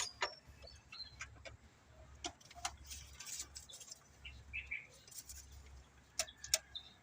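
Faint scattered clicks and light metallic ticks from work on the engine, with a few faint bird chirps over a low background hum.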